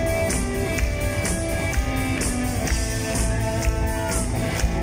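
Live rock band playing an instrumental passage: drum kit keeping a steady beat with cymbal strokes, electric guitar, bass and keyboard holding chords, heard from among the audience in a concert hall.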